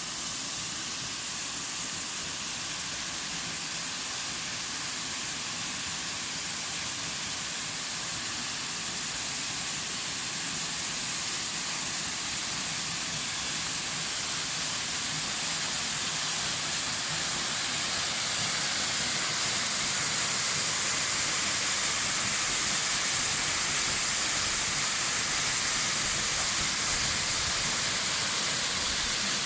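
Waterfall: a steady rush of falling water, a hiss that grows slightly louder about halfway through.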